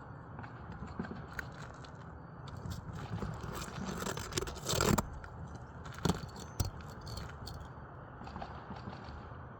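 Roof shingles being pried up to get at their nails: irregular scraping and crackling, with a sharp knock about five seconds in and two more a little after six seconds.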